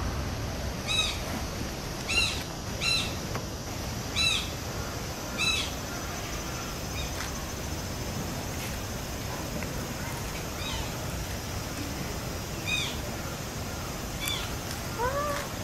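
A bird calling repeatedly in short, sharp, arched calls, about one a second for the first six seconds, then a few fainter calls and a lower one near the end, over steady background noise.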